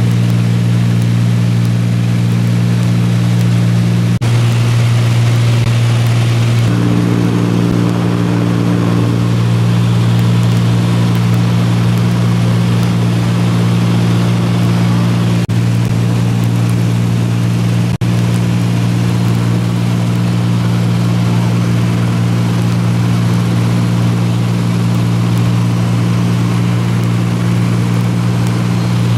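Piston engine and propeller of a small high-wing light aircraft droning steadily in cruise, heard from inside the cabin. The tone shifts slightly a few seconds in.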